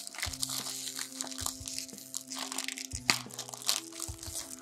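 Crinkling and crackling of a small wrapped mystery packet being torn and unwrapped by hand, over background music of long held notes.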